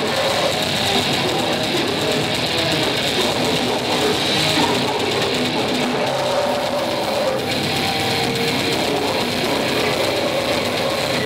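Blackened death metal band playing live: distorted electric guitar and drums, loud and dense without a break.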